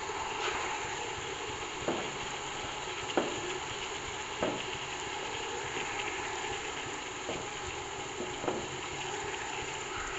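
Diced potatoes and freshly added shredded cabbage sizzling in oil in a metal pot. A metal spoon scrapes and knocks against the pot now and then as the vegetables are stirred.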